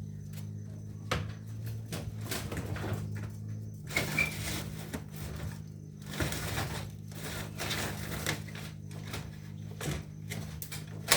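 Plastic parts of a washing machine being handled and fitted: irregular scraping, rubbing and clattering of plastic over a steady low hum.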